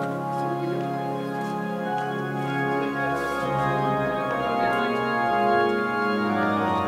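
Church pipe organ playing held chords that change every couple of seconds during Mass.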